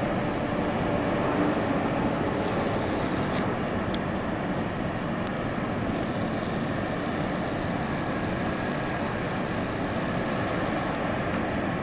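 Steady roar of the American Falls at Niagara, an even rushing noise. A thin high-pitched buzz rides over it briefly about two and a half seconds in and again from about six seconds in until near the end.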